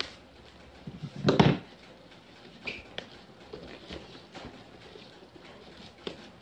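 Black plastic parcel wrapping crinkling and tearing as it is picked and pulled open by hand, in scattered short crackles, with the loudest rustling burst about a second and a half in.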